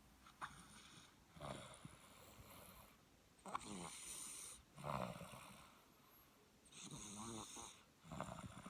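Soft snoring in a series of breaths roughly every one to two seconds. Several are drawn out, with a hissing, airy edge.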